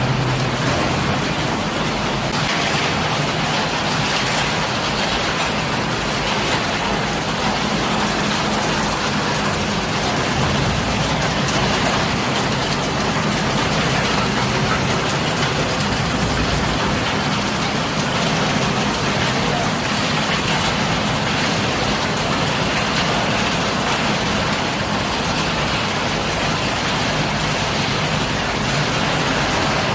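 Refrigerator crushing and sorting line running: a steady, dense mechanical noise with no distinct impacts.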